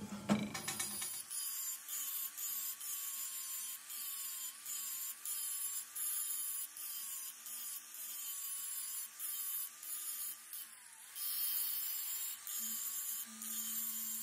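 Angle grinder grinding down the weld built up on the teeth of a steel pinion gear. The motor whine wavers in pitch as the disc is pressed on and eased off, and the grinding hiss keeps breaking off and starting again.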